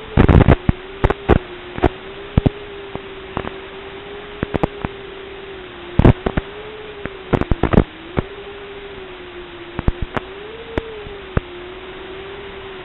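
Steady hiss with a wavering hum tone from an analog FPV video link, recorded through the goggles' DVR, broken by irregular sharp crackles, some in quick clusters.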